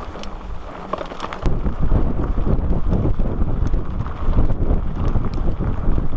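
Wind buffeting an action camera's microphone while a mountain bike rolls over a gravel dirt track, with small clicks and rattles from the bike and stones. The rumble gets much louder about a second and a half in.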